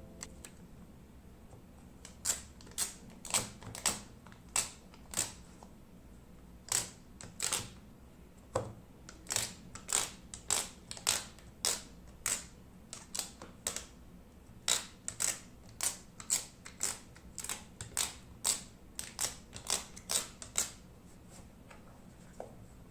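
A long irregular run of short, sharp clicks, about one to three a second, with a short break about six seconds in.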